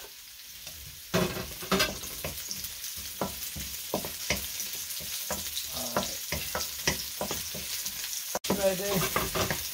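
Sliced onion going into hot oil in a stainless steel wok, the sizzle jumping up about a second in, then frying steadily while a wooden spoon stirs and scrapes against the pan.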